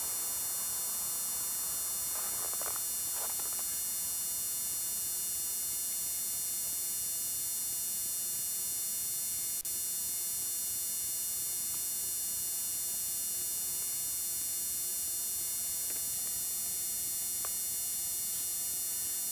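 Steady hiss with a thin high-pitched whine from the camcorder's own recording noise, and no clear sound event. There is a faint brief rustle about two to three seconds in and a short dropout near the middle.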